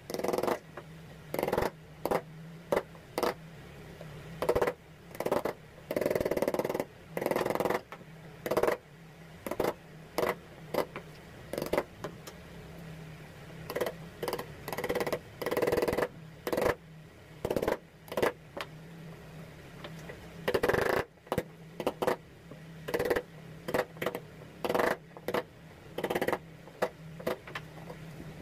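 Steel wood chisel chopping and paring notches into a hardwood handle blank held in a bench vise: irregular sharp cuts and short scraping strokes, some following each other quickly. A steady low hum runs underneath.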